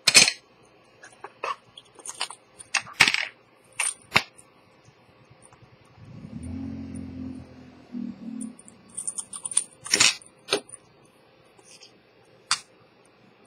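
Irregular sharp light clicks and metallic clinks, loudest at the start and again about ten seconds in, with a short low hum in the middle.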